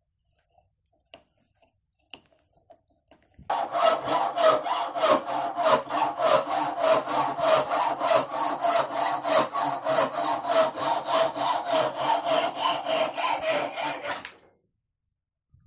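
Small hacksaw cutting through a steel wood screw just below its head, in quick even strokes of about three a second, with a steady metallic ring. The sawing starts about three and a half seconds in and stops shortly before the end.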